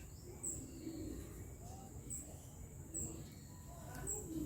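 Birds calling faintly in the background: low dove-like cooing and a short high chirp repeating about once a second.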